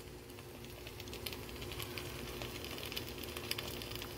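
Creamy noodle sauce heating in a pot on the burner, crackling and popping faintly in small irregular ticks that grow more frequent toward the end, over a steady low hum.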